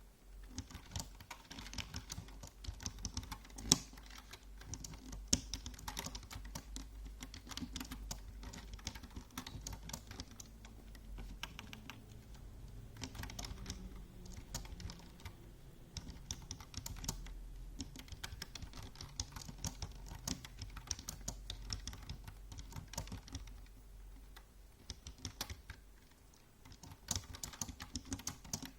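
Typing on a computer keyboard: keys clicking in quick runs with short pauses, a couple of keystrokes much louder than the rest about four and five seconds in.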